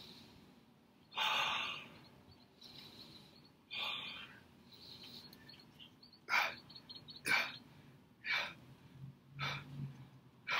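A man breathing hard through his mouth while lifting: two long breaths early, then short, sharp exhalations about once a second, in time with his dumbbell press reps.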